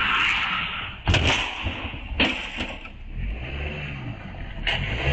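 A car crash into roadside objects: a sharp bang about a second in, another about two seconds in and a third near the end, over a steady hiss.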